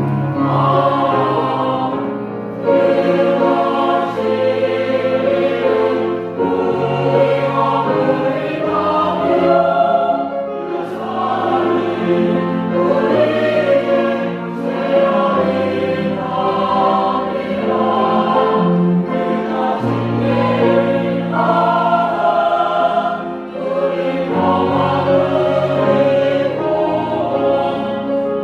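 Church choir singing a sacred anthem in Korean, the parts holding long chords that shift from one to the next.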